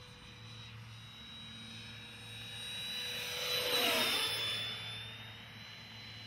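Freewing 80mm electric ducted-fan A-4 Skyhawk model jet making a low, fast pass: its fan whine swells to a peak about four seconds in, then drops slightly in pitch and fades as the jet goes by and away.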